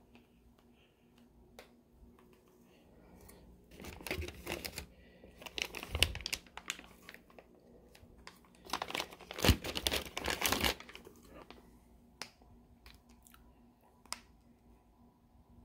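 Plastic bag crinkling and rustling as it is handled, in three bursts, the last and longest lasting about two seconds, followed by a few sharp clicks.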